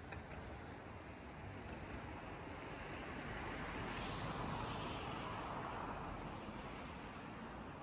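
Distant city traffic hum. A rushing swell rises about three seconds in and fades again a few seconds later.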